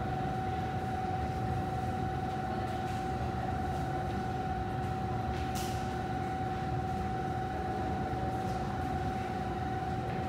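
Underground railway platform ambience: a steady low rumble with a constant high-pitched hum over it, and a short hiss a little past halfway.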